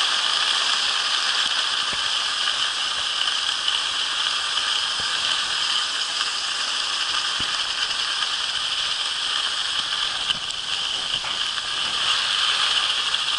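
Skis sliding fast over hard snow: a steady, rattling hiss.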